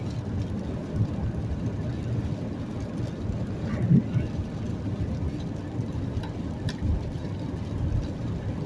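Steady low rumble of a vehicle engine and road noise, with a brief louder pitched sound about four seconds in.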